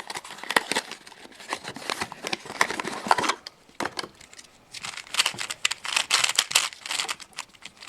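Plastic packaging crinkling as a Dayan Lingyun v2 speedcube is unwrapped, then, after a brief pause, rapid plastic clicking of the cube's layers being turned.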